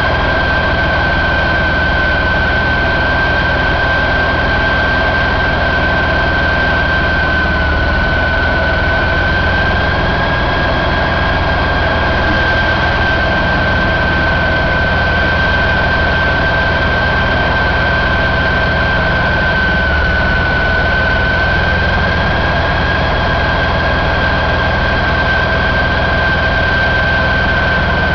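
Detroit DD13 inline-six diesel engine running steadily on a test stand, with a steady high-pitched whine over the low engine note.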